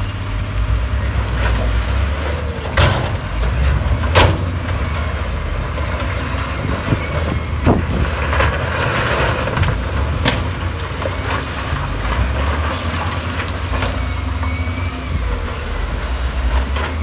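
Heavy diesel construction machinery running with a steady low engine rumble, broken by several sharp clanks and a short hiss about eight seconds in.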